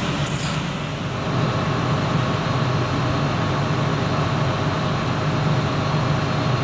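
Fishing boat's engine running, a steady low drone that holds level throughout.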